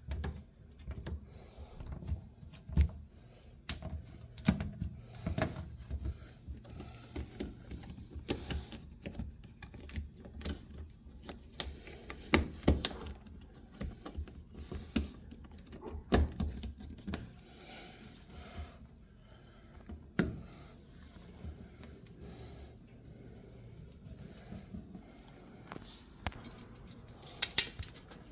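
Irregular handling noises from hand work on an LG front-load washing machine's door area: scattered knocks, clicks and rubbing, with a sharper, brighter click near the end.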